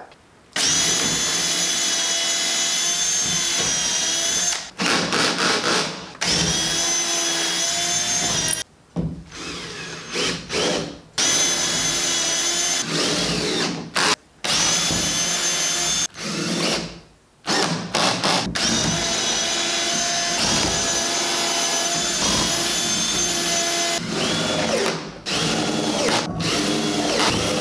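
Cordless drill running in repeated bursts, a steady whine that stops and starts many times, pre-drilling holes through wooden trim and plexiglass so the plexiglass does not crack.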